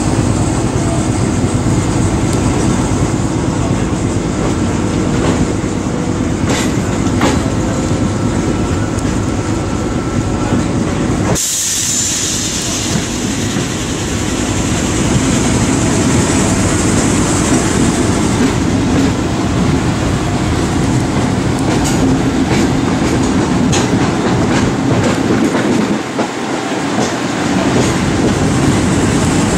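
A railway coach rolling along the track in a diesel-hauled train, heard through an open door: a steady running noise of wheels on rails, with scattered clicks over the rail joints. About eleven seconds in the sound shifts abruptly, with a brief hiss.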